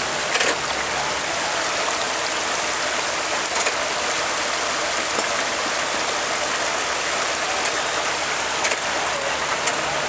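Water rushing steadily over a small rocky waterfall close by, with a lifted pickup truck's engine running low underneath and a few short knocks.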